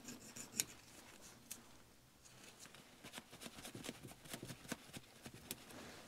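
Faint scraping and irregular light ticks of a small metal hand tool worked against the ignition switch's electrical contacts, squaring off a rounded-off contact. The ticks are sparse at first and come more often from about halfway.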